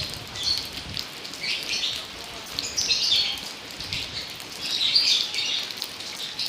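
Rain falling steadily, with louder bursts of hiss every second or two.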